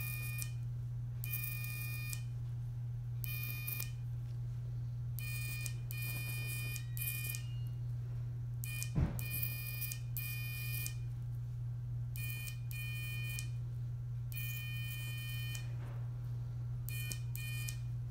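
Electrocautery unit sounding its steady beep tone in about a dozen short bursts of half a second to a second, at irregular intervals, each time the handpiece is switched on to seal small oozing blood vessels. A steady low hum runs underneath, and there is one sharp click about nine seconds in.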